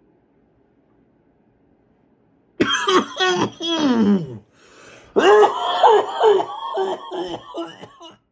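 A person fighting back coughs: strained, choked throat noises and coughs in two bouts, the first about two and a half seconds in and the second from about five seconds, fading out near the end.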